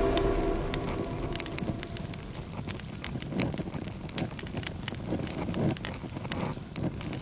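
Wood fire burning, with irregular sharp crackles and pops over a steady low rush of flame.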